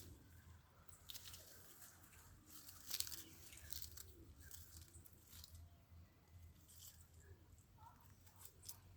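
Faint crunching and clicking of a baby monkey chewing something held in its mouth, in short irregular bursts, the loudest about three seconds in.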